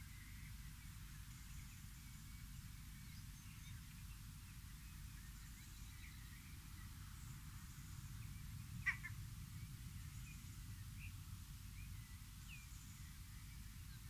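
Outdoor woodland ambience: faint, scattered small bird chirps over a low, steady rumble, broken about nine seconds in by one short, sharp, loud sound.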